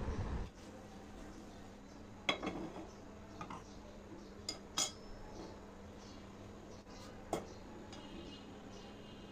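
Custard pouring into a metal pudding tin, stopping about half a second in, then a few sharp metal clinks and knocks of cookware as the tin is handled and set down into a pan.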